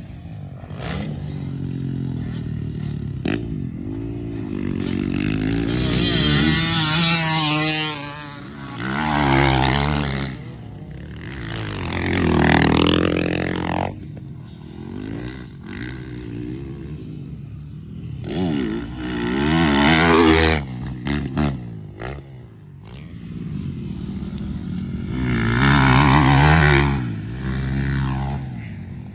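Motocross dirt bikes riding the track, engines revving up and falling off in pitch as they accelerate, shift and jump, swelling loud about five times as bikes come close.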